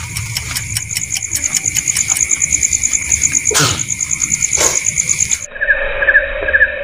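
Crickets chirping in a fast, even pulse, with two falling swoops partway through. About five and a half seconds in, the sound cuts abruptly to a different, more muffled layer with its own chirping.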